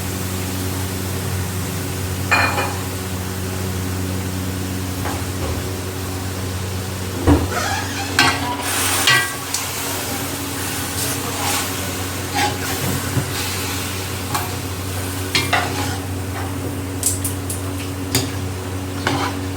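Minced meat and chopped tomatoes sizzling as they fry in oil in a pot, with a spoon scraping and knocking against the pot now and then as it is stirred. A steady low hum runs underneath.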